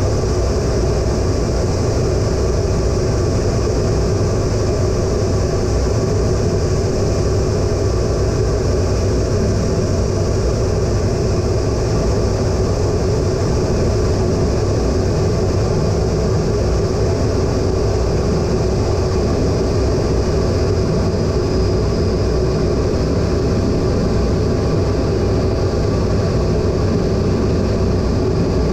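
Cockpit noise of an A-10 Thunderbolt II in flight, its twin TF34 turbofan engines giving a loud, steady drone with a few steady whining tones over it.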